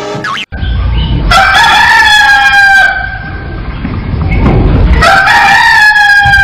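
A rooster crowing twice, two long calls each falling slightly in pitch toward the end.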